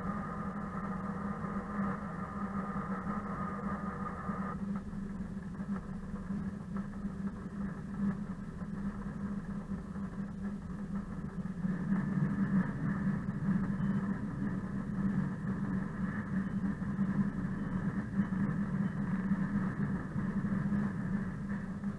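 ČKD class 742 diesel locomotive's six-cylinder engine running steadily while under way. Its higher tones drop away about four seconds in, and from about halfway it runs louder and fuller.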